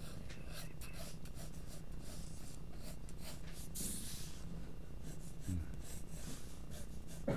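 Graphite mechanical pencil sketching on paper: short strokes scratching lightly, with a longer hiss about four seconds in, over a steady low hum.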